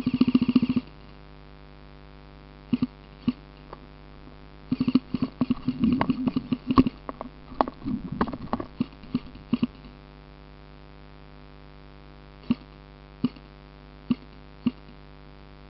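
Airsoft gunfire: a short rapid burst of evenly spaced shots right at the start, then scattered single shots, a busy stretch of clicks and knocks in the middle, and a few single shots near the end, over a steady hum.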